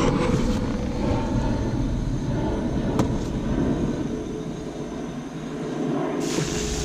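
Front wheel of a jacked-up Ford F-150 spun hard by hand, the hub and wheel bearing giving a steady rumble that eases a little past the middle and picks up again near the end, with one sharp click about three seconds in. The wheel is being spun to check the bearing for noise.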